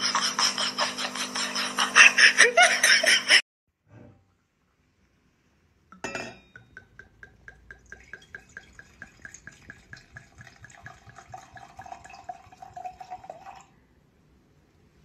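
Red wine poured from a glass bottle into a wine glass, glugging in quick even pulses for about eight seconds. Before it, a loud rhythmic sound with a steady hum under it cuts off suddenly a few seconds in.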